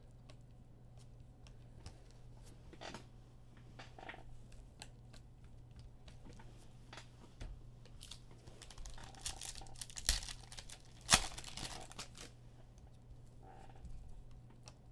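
Trading card pack wrappers being torn open and crinkled, with scattered small clicks. The tearing and rustling get busier about eight seconds in, with two sharp snaps near ten and eleven seconds.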